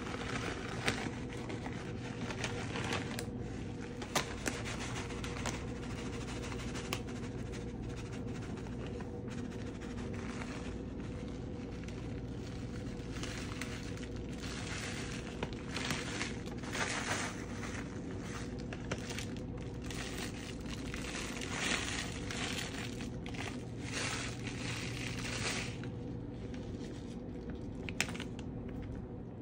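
Plastic bag of shredded cheese crinkling and rustling in repeated bursts as it is shaken and squeezed to sprinkle the cheese out, over a steady low hum.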